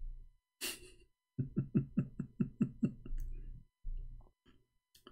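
A man laughing: a sharp noisy breath about half a second in, then a run of about eight quick pitched 'ha' pulses, about five a second, tailing off into softer breaths.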